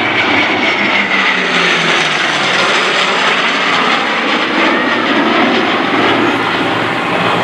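An F/A-18 Hornet jet and an F4U Corsair piston fighter passing overhead together in formation: a loud, steady rush of jet and engine noise. A high whine and a low engine note both fall in pitch as the pair goes by.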